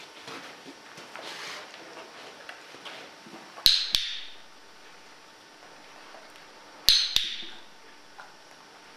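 Handheld dog-training clicker clicked twice, each a sharp double click-clack of press and release, marking the dog's behaviour for a reward. Soft rustling of movement before the first click.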